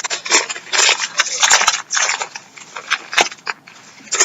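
Plastic candy bag crinkling and tearing open in a run of irregular crackles.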